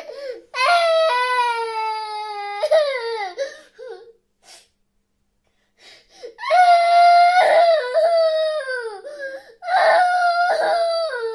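High-pitched crying, a series of long wailing cries that waver and slide down in pitch. It stops for about two seconds near the middle, then comes back in two more drawn-out cries.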